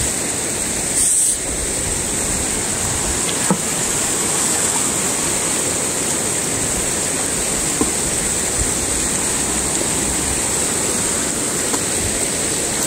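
A river rushing steadily, loud enough that the speaker has to raise his voice over it.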